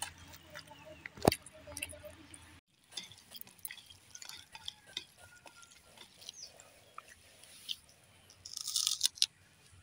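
Hands mixing rice and curry on steel plates, with small clinks of glass bangles and steel and one sharp click about a second in. Near the end a brief crackly crunch as a papad is broken.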